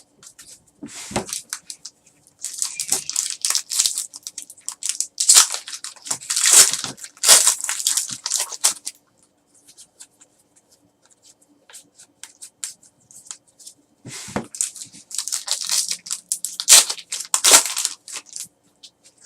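Trading card pack wrappers being torn open and crinkled, in two bouts of rustling and tearing with a quiet pause between.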